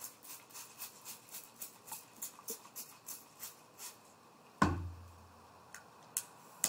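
Trigger spray bottle squirting a vinegar-and-salt solution onto a copper sheet in quick pumps, about four squirts a second for some four seconds. Then a single loud thump, followed by a few sharp clicks near the end.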